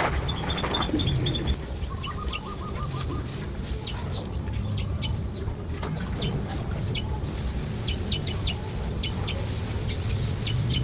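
Backyard farm ambience: small birds chirping repeatedly in short high notes and chickens clucking over a steady low rumble. A short rapid trill comes about two seconds in.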